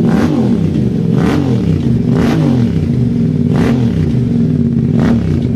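Yamaha Ténéré 700's 689 cc parallel-twin engine running loud through a long Yoshimura slip-on silencer with its dB killer removed, blipped about five times, each rev climbing and dropping back to idle.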